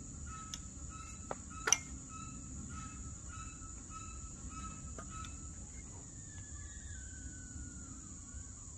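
Steady high-pitched insect drone of crickets, with birds chirping short repeated notes. A sharp click from the semi-auto shotgun being handled comes about two seconds in, and a faint tone glides slowly downward over the last few seconds.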